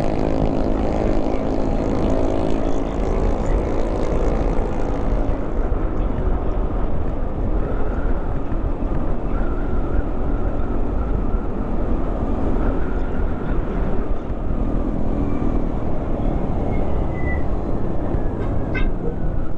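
Motorcycle engine running and road noise while riding along a road, under a heavy, steady wind rumble on the microphone. The engine's note is clearest in the first few seconds and then sinks into the rumble.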